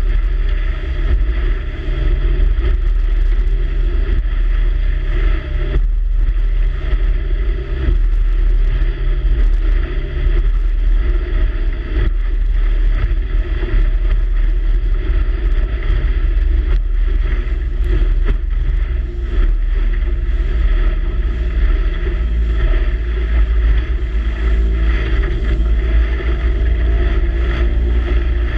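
Steady heavy wind rumble on the microphone mixed with the rush and slap of choppy water, from a boat moving across open water.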